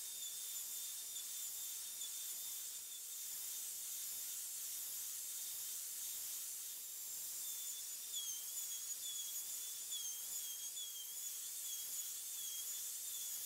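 Wood router on a router sled running with a steady high-pitched whine and hiss. About eight seconds in, its pitch starts to dip and recover several times as the bit skims a light pass across an oak panel.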